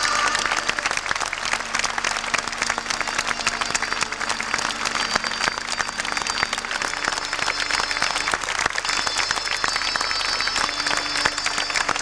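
A large crowd applauding: many hands clapping together in a dense, steady run.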